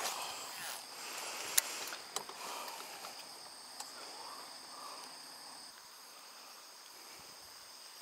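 A steady, high-pitched chorus of insects chirping from the bank. A few sharp clicks sound in the first two seconds, the loudest about a second and a half in.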